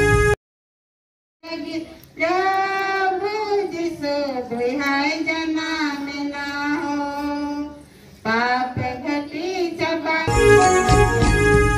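A group of children singing a song together into a microphone, after about a second of silence at the start. Near the end, loud instrumental music comes in.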